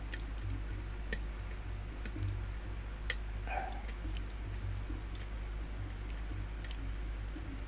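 Lock pick working the pins of a challenge lock under tension, single-pin picking: scattered small metal clicks and ticks over a steady low hum.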